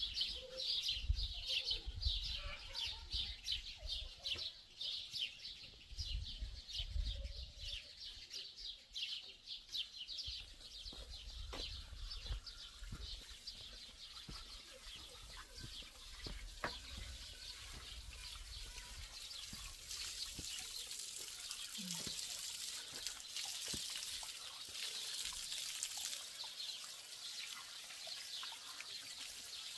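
Birds chirping in rapid repeated notes over a low rumble. From about halfway through, water runs steadily from an outdoor tap into a metal basin as dishes are rinsed.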